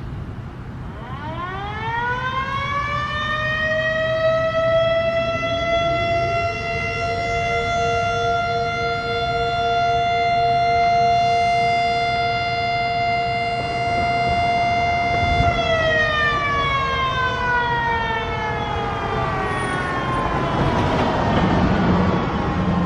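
Harry O. Ricci Siro-Drone civil defense siren sounding a short steady alert. It winds up over about three seconds, holds one steady tone, then winds down from about fifteen seconds in. A second, fainter, lower siren tone winds up a few seconds after the first and winds down a little later.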